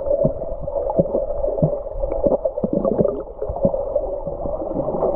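Muffled gurgling river water heard underwater, a steady drone with many scattered small knocks and bubbles.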